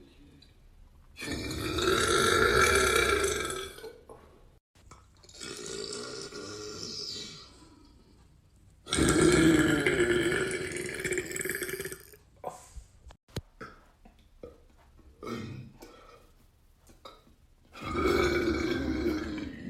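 A man burping on purpose: four long, deep burps of two to three seconds each, the second softer than the rest, with a few short faint noises in the gaps between them.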